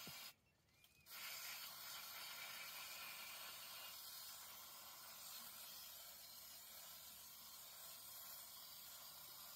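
Faint, steady hiss of an aerosol antiseptic fly-repellent spray being sprayed onto an elephant's leg wound, with a break of under a second near the start.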